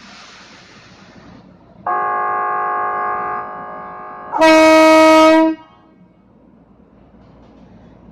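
Ex-Tokyu KRL commuter train's electric horn sounding. A brief hiss comes first, then a steady chord-like tone for about two and a half seconds, then a louder, lower blast of about a second.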